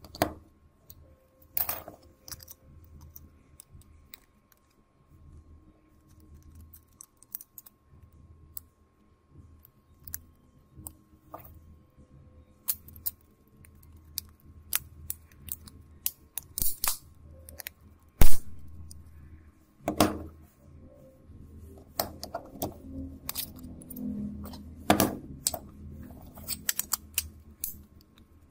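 Plastic clicks and taps of a Samsung phone's housing parts being handled and snapped together, scattered and irregular, busier in the second half, with one loud sharp click about eighteen seconds in.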